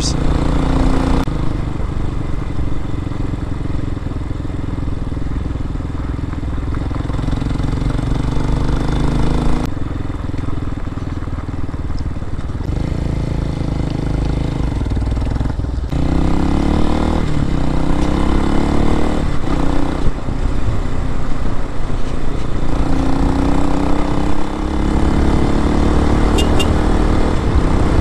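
RPS Hawk-X 250 dual-sport motorcycle's single-cylinder engine running under way, heard from the rider's seat with wind noise. Its pitch climbs and drops several times with throttle and gear changes, and it grows louder about halfway through.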